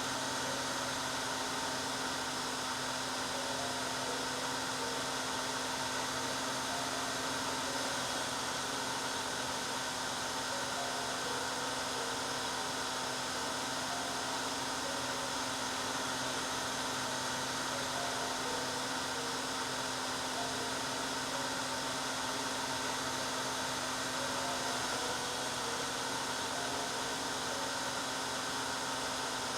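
Hair dryer running steadily: an even rushing of air over a constant motor hum, with no change.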